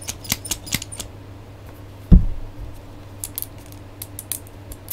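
Plastic Small Soldiers Freakenstein action figure being handled, its parts giving scattered light clicks and rattles. One dull thump about two seconds in is the loudest sound.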